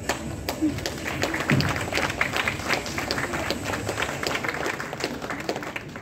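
Audience applauding: many hand claps, dense through most of the stretch and thinning out at the end.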